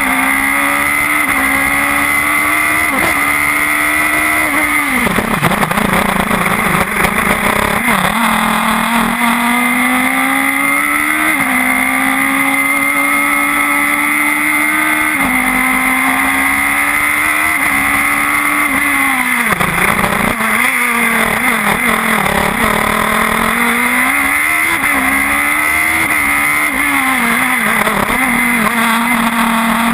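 Radical SR4 race car's engine, heard on board at full speed, climbing in pitch through the gears with a sudden drop at each upshift. Twice the engine note falls low and rough while braking for a corner, then climbs again.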